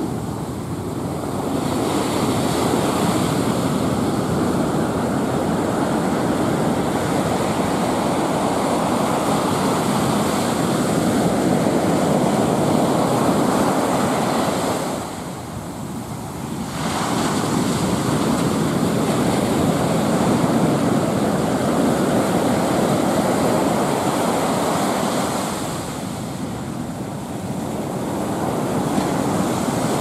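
Ocean surf breaking and foam washing up a sandy beach: a continuous rush of water with two brief lulls, about halfway through and near the end.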